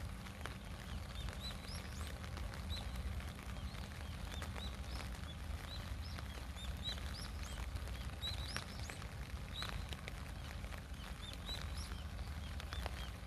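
Small birds chirping in forest: many short, high chirps, one after another, over a steady low rumble.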